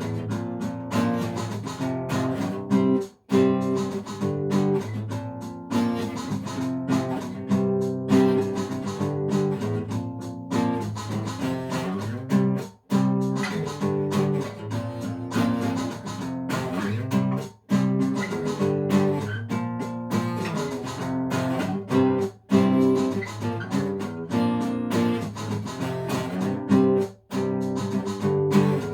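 Acoustic guitar music, plucked and strummed, with a few momentary breaks.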